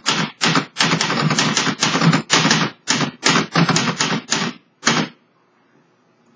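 1970s Underwood 315 portable manual typewriter being typed on at speed, keys snapping against the platen in quick runs, stopping about five seconds in.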